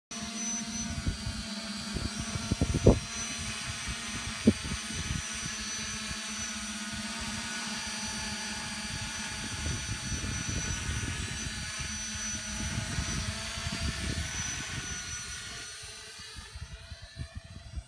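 A TBS Discovery FPV quadcopter's brushless motors and propellers whine steadily as it hovers and flies, fading near the end as it moves away. Wind rumbles on the microphone, with a loud thump about three seconds in and another a second and a half later.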